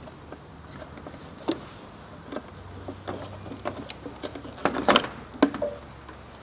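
Hands working a rubber hose and plug at a plastic power-steering reservoir: scattered light clicks and knocks of plastic and metal, with a louder cluster of knocks about five seconds in.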